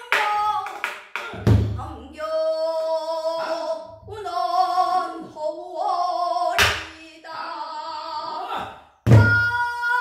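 A female voice singing a Namdo sori danga in long, held, wavering notes, accompanied on a buk barrel drum. Deep drumhead strokes come about a second and a half in and again near the end, with sharp cracks on the drum's wooden rim in between.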